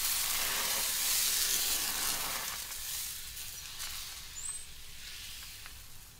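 Crepe batter sizzling on a hot round griddle as it is spread thin with a wooden spreader: a loud hiss for the first couple of seconds that slowly dies away.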